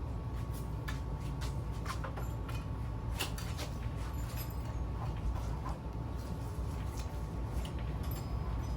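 Scattered light clicks and knocks, a few a second at irregular intervals, over a steady low rumble and a faint constant tone.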